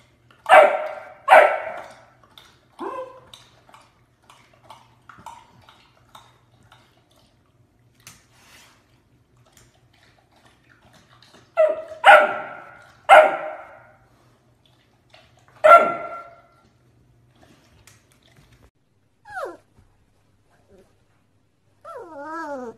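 Labrador puppy barking in short, sharp, fairly high barks: two loud barks about a second in and a weaker one soon after, then, after a long pause, a second run of three loud barks a second or two apart. Near the end there is a short wavering whine.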